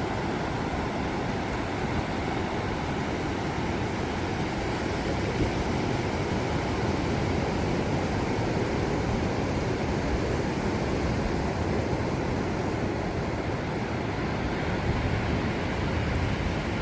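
Pacific Ocean surf: a steady, even rush of breaking waves, deepest in the low end, with no single crash standing out.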